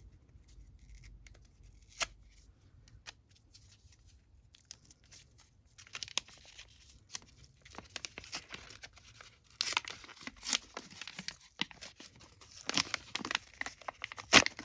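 A packet being torn open and crinkled by hand. It is mostly quiet at first, with a single click about two seconds in, then tearing and rustling that gets louder in the second half and ends with a sharp snap.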